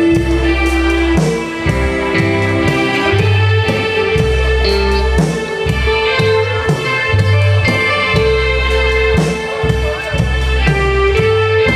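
Live band music: electric guitars, keyboard and drum kit playing over a steady, rhythmic bass line.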